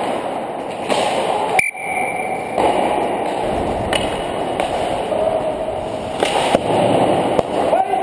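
Ice hockey skating heard from a helmet camera: a steady rumble of skate blades on the ice mixed with air rushing past the helmet. A few sharp clacks come from sticks and puck.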